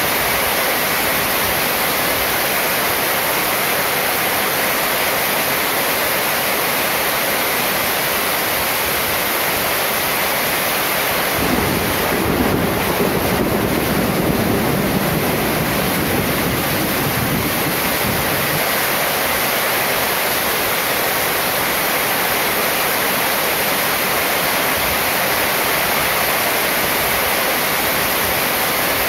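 Heavy rain falling on a corrugated metal roof and running off its edge, a steady dense hiss. About twelve seconds in a low rumble of thunder rolls through for about six seconds, then fades back under the rain.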